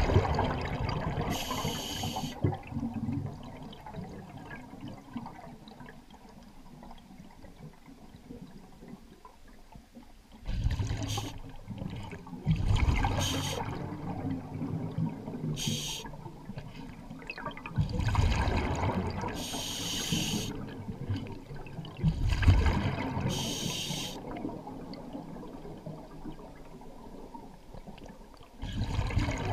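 Scuba diver breathing through a regulator underwater: bursts of bubbling from exhaled air every few seconds, with short hisses of the demand valve in between, heard muffled through the camera housing.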